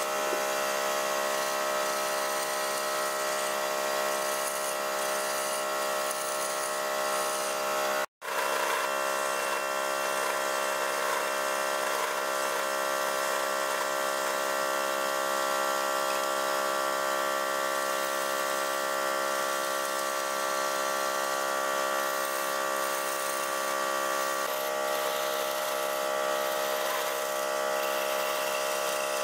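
Wood lathe running with a steady motor whine, under the scrape of a hand-held flat scraper cutting beads and grooves into the spinning wood. The sound cuts out completely for a moment about eight seconds in.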